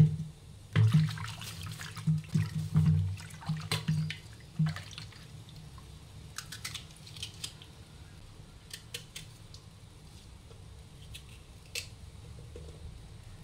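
Peeled vegetables dropped into a steel bowl of water with a splash, then a few seconds of splashing and sloshing as they are handled in the water. After that, only faint scattered clicks and drips.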